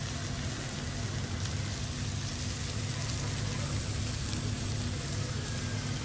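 Squid rings sizzling as they stir-fry in a hot wok: a steady hiss, with a low steady hum underneath.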